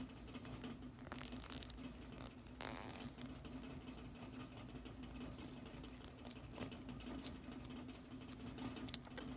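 A few faint plastic clicks and rustles as a Playmates Kong action figure is handled and its battle axe is fitted into its hand, over a steady low hum.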